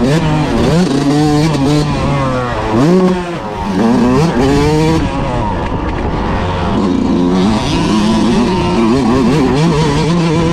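Motocross dirt bike engine heard from the handlebars while riding, its pitch repeatedly rising under throttle and dropping again through gear changes and corners.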